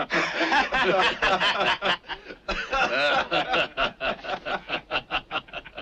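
Men laughing: a rapid run of repeated ha-ha sounds, several a second, with a short lull about two seconds in.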